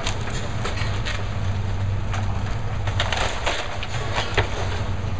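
Hitachi excavator's diesel engine running steadily while its demolition grapple crunches and splinters wooden roof framing and debris, with irregular cracks and clatters of breaking material, busiest about three seconds in.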